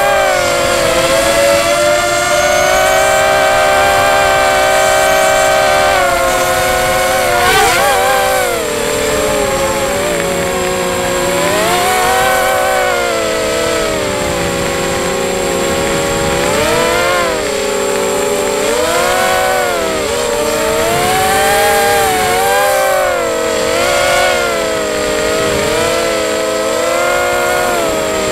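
QAV250 FPV quadcopter's brushless motors and propellers, on a 4S battery, whining throughout, heard close from on board. Several close tones glide up and down every second or two as the throttle changes.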